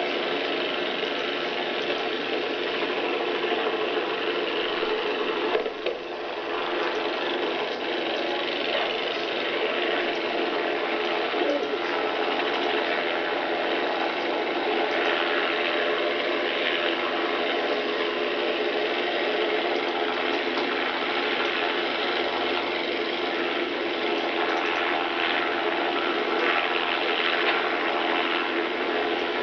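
Steady mechanical running noise with several constant hum tones in it, unbroken except for a brief dip about six seconds in.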